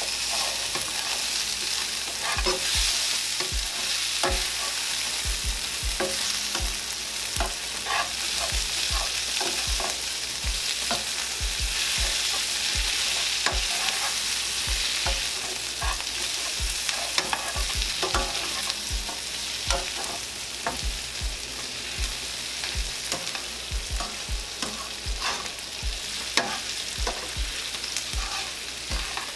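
Sliced onions, bell peppers and mushrooms sizzling in a skillet with a pat of butter, stirred and scraped with a spatula. A steady frying hiss runs under frequent light knocks of the spatula against the pan.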